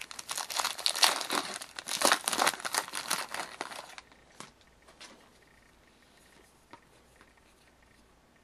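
A trading-card pack wrapper crinkling and tearing as a pack of hockey cards is opened, dense and crackly for about four seconds. After that come only a few faint clicks of cards being handled.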